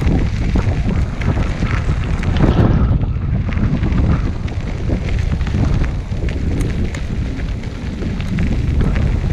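Wind buffeting the microphone of a GoPro on a moving recumbent trike, over the rumble and scattered small clicks of tyres rolling on a dirt trail.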